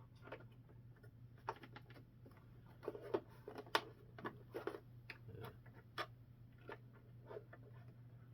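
Irregular light clicks and taps of hands handling and fitting plastic parts of a battery-powered M1A2 Abrams toy tank, over a steady low hum.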